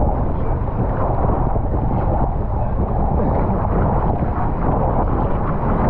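Choppy water sloshing and splashing around the crew in the water beside a capsized F50 catamaran, right at the camera, with a heavy wind rumble on the microphone.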